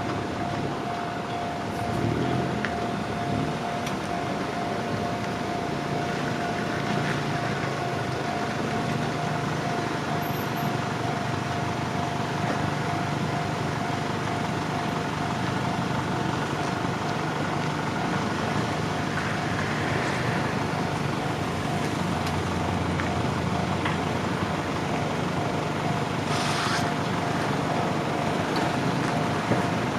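Level crossing warning alarm sounding continuously, a steady ringing tone, over a low steady rumble.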